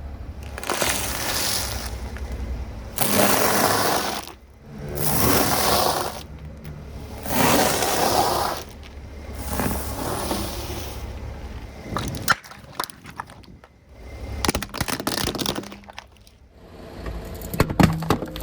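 Objects crunching and cracking under a car's tyres: a series of loud crunching bursts about every two seconds, then scattered sharp cracks and snaps near the end.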